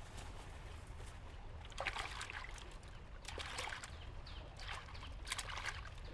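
Water splashing in four short bursts, over a steady low rumble.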